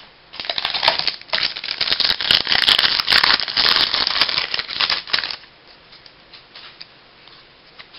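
Crinkling and rustling of a baseball card pack's wrapper and cards being handled, a dense crackle for about five seconds that then falls to faint scattered ticks.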